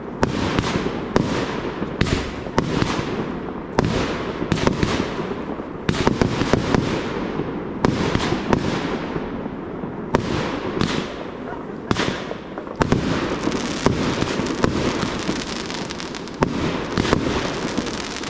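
Fireworks display: aerial shells launching and bursting in quick succession, a sharp bang every half second to a second, each trailing off in echo.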